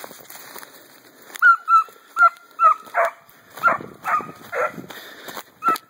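A 3-month-old deer-tracking puppy barking in a run of short, high-pitched yips, about two a second, beginning about a second and a half in. Before that there is a low rustle of movement through leaf litter.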